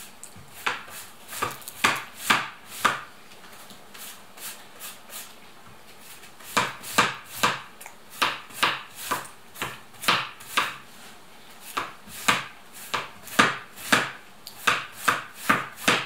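Knife chopping on a cutting board in quick, regular strokes, about two to three a second. There is a short run near the start, then a pause, then a longer run from about six seconds in.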